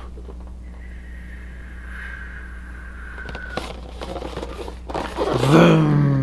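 A cardboard toy box handled and turned over, with a few light clicks. About five seconds in, a man's loud, drawn-out wordless vocal sound starts, its pitch bending.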